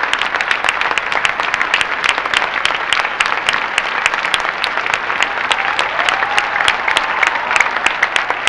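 Large theatre audience applauding: dense, steady clapping throughout.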